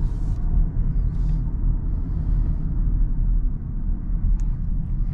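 Steady low rumble of road and drivetrain noise inside the cabin of a Kia Sorento 1.6 T-GDI hybrid while it drives.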